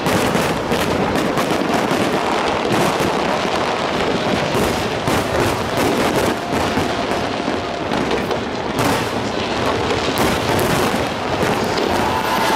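Aerial fireworks display going off in quick succession: a dense, unbroken run of bangs and crackling bursts.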